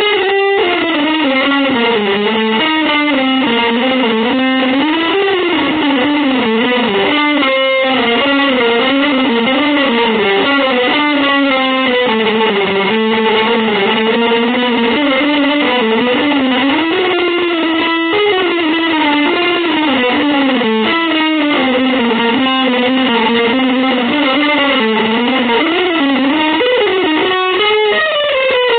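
Electric guitar playing a continuous, winding melodic line that glides up and down without pauses, with a sustained, effects-treated tone.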